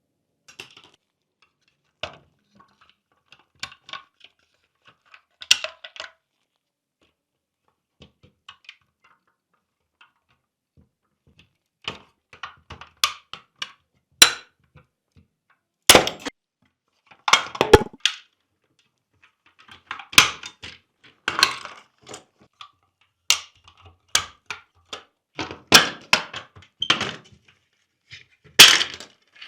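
Small plastic and metal parts of a scale model car being handled with tools, giving irregular clicks, taps and knocks on a hard work surface. The sounds are sparse at first and come thicker and louder from about halfway through.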